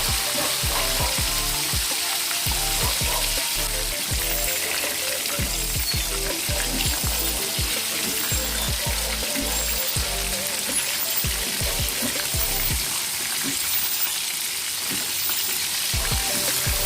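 Chicken frying in hot oil: a steady sizzle with frequent crackles and pops.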